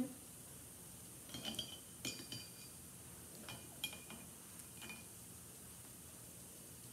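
Paintbrush clinking against a glass rinse-water jar as it is swirled and tapped clean: several light clinks with a short ring, spread over about the first five seconds.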